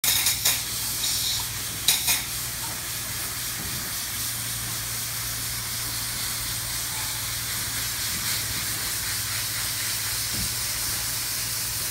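Two-component spray foam gun spraying open-cell foam insulation in a steady high hiss, with a few sharp clicks in the first two seconds and a steady low hum underneath.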